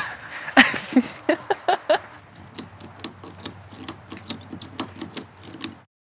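Individual raindrops falling on wet asphalt and shallow puddles: scattered drips and plinks at an uneven pace, several a second, a few of the early ones with a short pitched plop. It cuts off just before the end.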